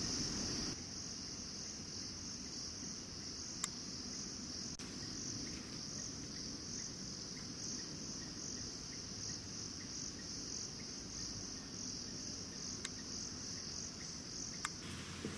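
Steady, high-pitched drone of rainforest insects, continuous throughout. It drops a little in level just under a second in, and a few faint clicks sound over it.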